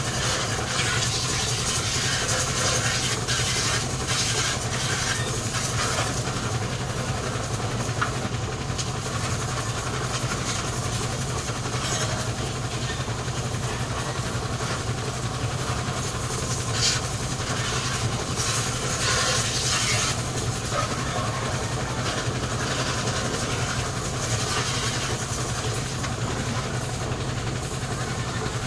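Water from a garden hose spraying against a van's body, an even hiss with occasional splashes and clicks, over a steady low motor hum.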